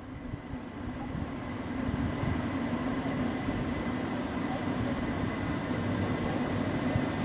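A train running into or through the station, its noise building over the first couple of seconds and then holding steady, with a low hum and a faint high whine.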